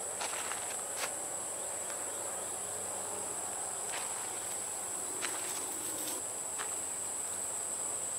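Steady high-pitched insect chorus droning without a break. A few faint clicks sound over it, about a second in, near four seconds, and twice between five and seven seconds.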